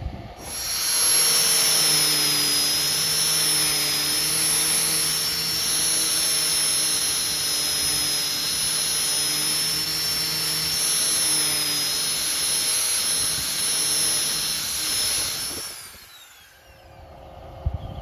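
Electric angle grinder running at speed with a steady high whine. About fifteen seconds in it is switched off, and the whine falls away as the disc spins down.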